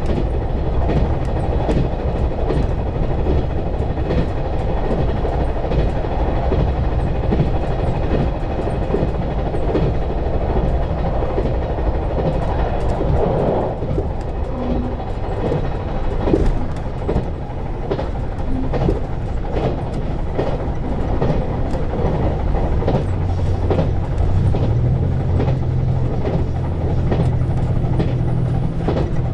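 KiHa 187 series diesel railcar running at speed, with a steady rumble and frequent clicks of the wheels over rail joints. About three-quarters of the way through, a low diesel engine hum comes up and holds.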